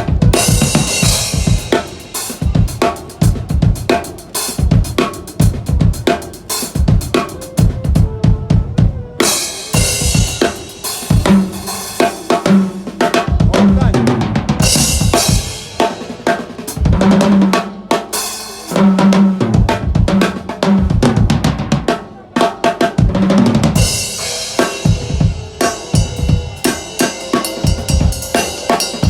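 Drum kit played as a sound check: rapid kick and snare patterns with cymbal crashes every few seconds. There is a run of pitched tom hits in the middle.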